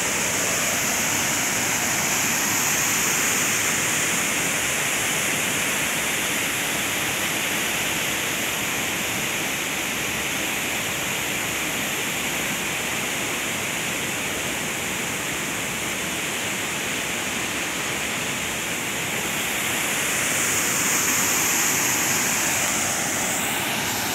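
Waterfall pouring into a plunge pool: a steady rush of falling water, a little louder near the end.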